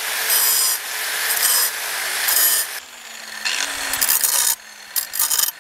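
Angle grinder with an abrasive disc grinding the serrated teeth of a spring-steel knife handle, in repeated passes about a second long. From about three seconds in, the touches become shorter and broken, with the grinder motor spinning free between them.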